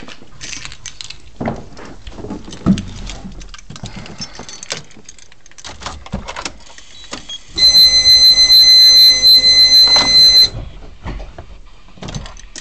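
Light clicks and knocks, then a loud, steady, high electronic warning tone for about three seconds from a car's dashboard buzzer, with the engine not yet running.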